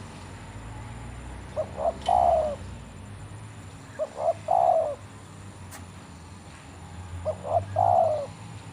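Spotted dove cooing three times, a few seconds apart: each call is two short notes followed by a longer, falling coo.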